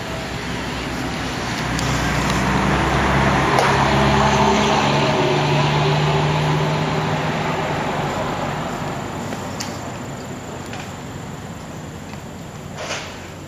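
An engine passing by. Its sound builds, peaks about four seconds in and fades away by about nine seconds. There is a short knock near the end.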